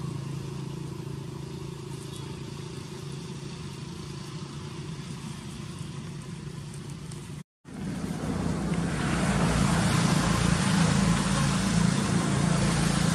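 Motor vehicle engine running as a steady low hum. After a brief dropout a little over halfway through, it comes back louder, with more traffic noise.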